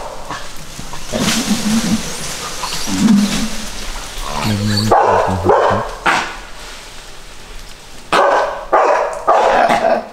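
Dogs barking in loud separate bursts, ending in three quick barks close together near the end, as they face off against langur monkeys.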